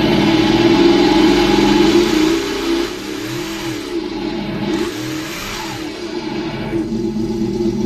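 Engine-sound simulator in an Axial RYFT RC rock crawler, playing a synthetic engine note through its speaker. The note is loud and steady for the first couple of seconds. In the middle it turns quieter and revs, rising and falling in pitch, and the steady note comes back near the end.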